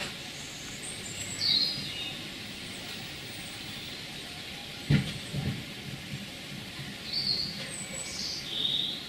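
Small birds chirping a few short, high calls over a steady background rumble. A single sharp knock comes about halfway through, the loudest sound, followed by a few softer low thumps.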